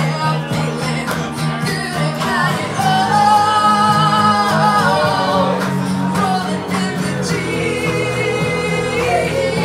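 A woman singing live into a microphone with guitar accompaniment, holding two long notes.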